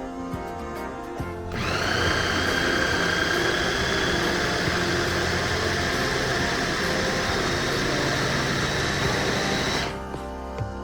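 Electric countertop blender motor starting about a second and a half in, spinning up quickly, running steadily for about eight seconds, then stopping abruptly; it is blending celery into a paste. Background music plays underneath.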